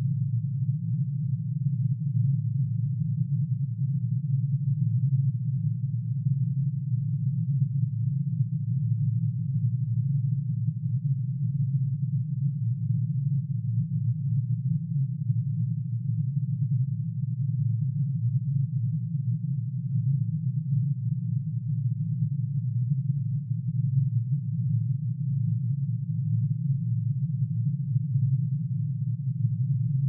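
Synthesized tone made by summing one sine wave for each line in curium's atomic emission spectrum, shifted down into hearing range: a dense, low, steady hum whose loudness wavers quickly and unevenly as the many close tones beat against each other.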